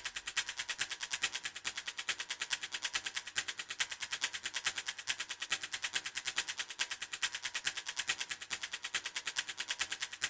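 Fast, even ticking, about eight sharp clicks a second, steady throughout: a sparse, percussion-only passage of the background music.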